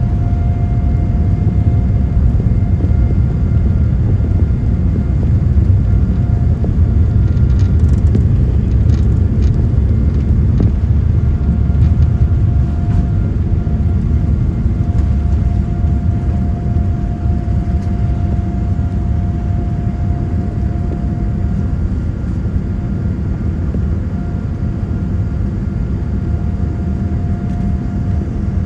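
Boeing 787-9 airliner heard from inside the cabin: a loud, steady low rumble of engines and airflow with a faint held tone above it, easing slightly in the second half.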